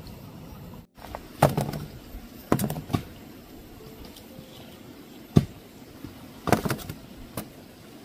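A handful of sharp knocks and clatters at irregular intervals over a low, steady background, starting about a second and a half in; the sharpest single knock comes a little past the middle.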